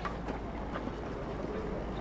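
Busy street ambience: a steady low rumble of traffic with faint voices of passers-by.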